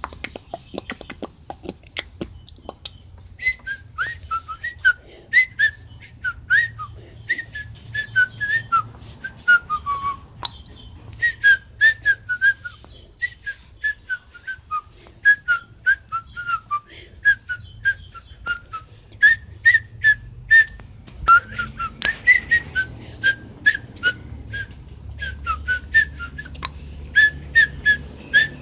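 A long run of short, high whistled chirps, several a second, many gliding downward, with a pause about halfway through.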